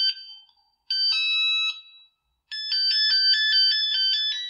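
Ringtone melodies played through the Nokia 110 4G feature phone's loudspeaker: the tail of one short, high electronic chime, another short chime about a second in, then a longer, quicker melody of alternating notes from about two and a half seconds in. The loudspeaker plays them loudly.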